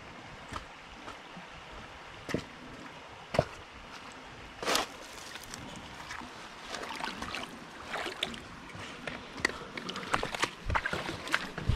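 Shallow creek flowing steadily, with irregular splashes and knocks from someone wading through it. These come a few at a time at first, then thicker and more continuous in the second half.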